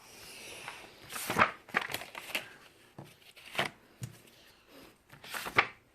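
Paper rustling in several short bursts as a picture book's pages are handled and turned.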